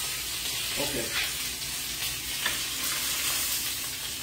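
Steady sizzling hiss of couscous with vegetables and bacon in a frying pan, with a couple of faint clicks.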